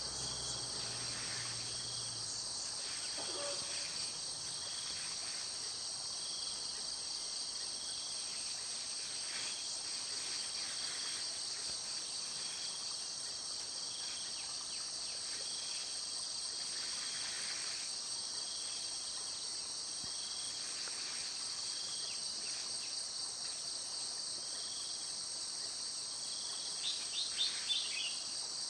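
Steady, high-pitched insect chorus, with faint scattered bird calls and a brief run of quick bird notes near the end, the loudest sound.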